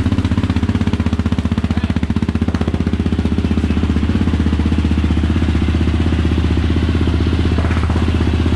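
Yamaha Raptor 700's single-cylinder four-stroke engine idling steadily through a newly fitted Yoshimura RS2 exhaust, just after its first start. The exhaust beat is loud and even.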